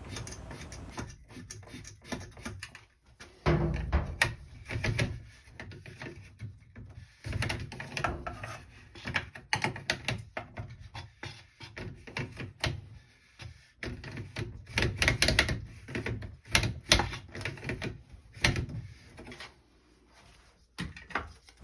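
Irregular clicks, knocks and rattles of hands and tools working on a Clack water softener control valve head, its plastic parts and fittings being handled.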